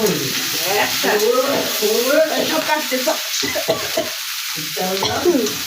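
Food sizzling in hot oil in a pan while it is stirred, with a steady frying hiss throughout and voices over it.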